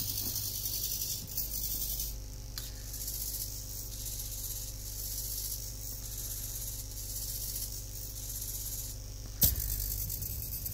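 Hobby servo motors of a MeArm robot arm buzzing and whining steadily as the arm is driven by remote control, with a sharp click about nine seconds in.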